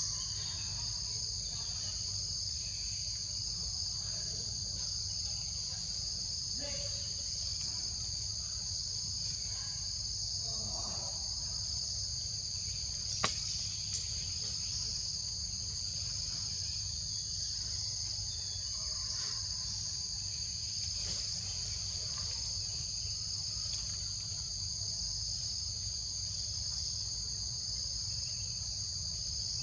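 Insects buzzing in a steady, high-pitched chorus over a low rumble, with two sharp clicks about halfway through, less than a second apart.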